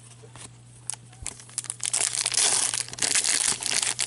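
Foil wrapper of a hockey card pack being torn open and crinkled by hand. It starts with a few crackles about a second in and grows into continuous loud crinkling from two seconds on.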